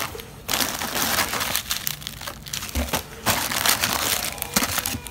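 Plastic snack wrappers crinkling and rustling as hands rummage through a cardboard box full of packaged candies, with a dull knock a little past halfway.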